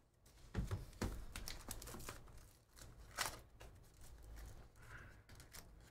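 Light clicking and rustling of trading cards and a cardboard box being handled, with a few sharper taps about half a second and about three seconds in.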